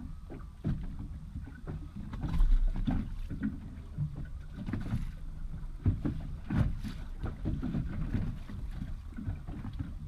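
Wind and water noise aboard a small boat drifting on a choppy sea: a steady low rumble broken by a few irregular knocks and thumps, the loudest about two and a half seconds in.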